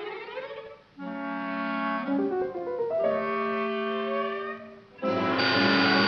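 Orchestral cartoon score with wind instruments holding notes that change in steps, fading briefly twice, then swelling into a louder, fuller passage about five seconds in.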